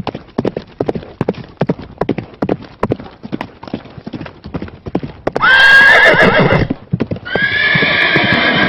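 Horse's hooves clip-clopping in a quick irregular patter, then a horse whinnying twice: a short call about five and a half seconds in and a longer one starting a second later.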